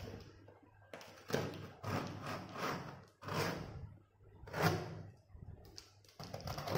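Utility knife slitting packing tape along a cardboard monitor carton: about five short scraping strokes, a second or so apart.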